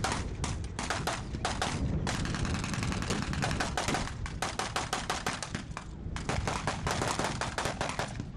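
Blank gunfire from machine guns and rifles: rapid bursts of shots, several a second, with short breaks about two seconds in and again about six seconds in.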